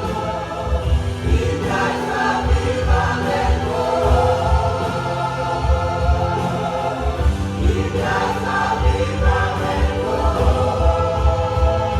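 Gospel worship song: voices singing together over a band with sustained chords and a steady low drum beat.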